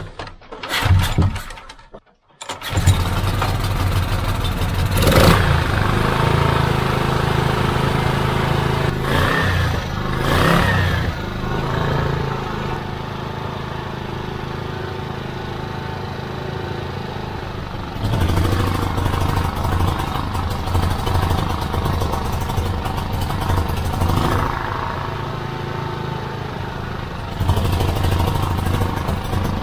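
Briggs & Stratton Vanguard 6 HP single-cylinder petrol generator engine pull-started, catching about two and a half seconds in, then running steadily with its air filter off, as a test of whether a clogged air filter is causing its rough running. Twice the engine sound drops for several seconds and then comes back up.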